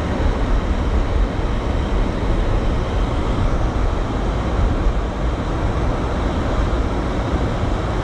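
Steady low rumble of a car driving on a snowy highway, heard from inside the cabin: tyre, road and engine noise with no break.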